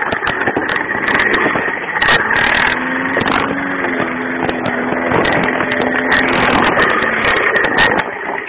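Gasoline walk-behind lawn mower engine running steadily, close to the microphone; it starts to die down near the end.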